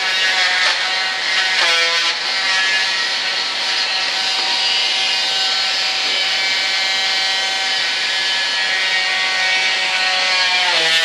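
A small high-speed electric rotary tool runs continuously as it trims material out of a model aircraft wing, with a steady whine and hiss. The pitch sags briefly under load about two seconds in and again near the end.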